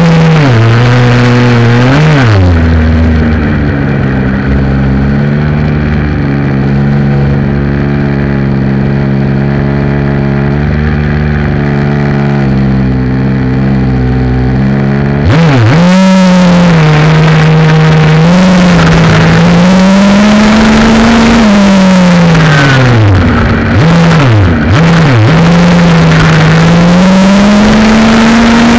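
Two-stroke gas engine of a 1/5-scale Redcat Rampage MT RC monster truck, heard close up from the onboard camera. It revs up and down for the first couple of seconds, holds a fairly steady pitch for about twelve seconds, then rises and falls again and again as the throttle is worked.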